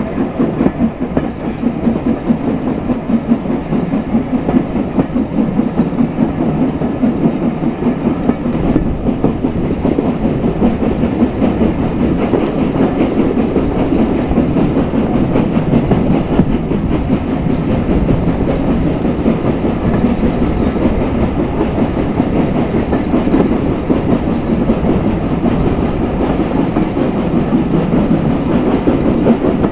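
Hunslet Austerity 0-6-0 saddle-tank steam locomotive working a train at speed: steady chuffing from its exhaust mixed with the carriage wheels clattering over rail joints, heard from an open carriage window.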